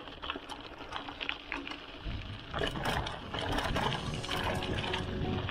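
Mountain bike coasting downhill on a loose gravel trail: tyres crunching over stones and the bike rattling with many scattered clicks. A deeper rumble sets in about two seconds in.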